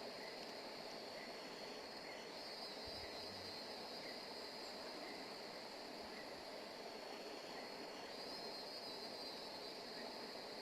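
Steady high-pitched insect buzz that swells a little twice, over a faint even hiss of outdoor background.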